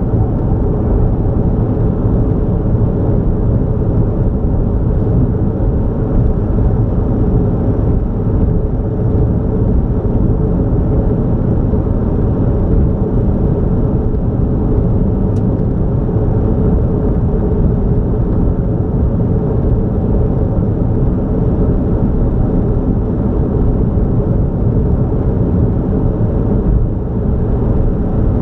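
Steady low rumble of a car driving along a highway: road and engine noise at an even speed.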